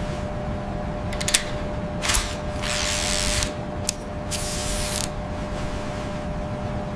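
Sound-effect robot mechanism: sharp mechanical clicks over a steady electric hum, with two short bursts of hiss, one about three seconds in and one about four and a half seconds in.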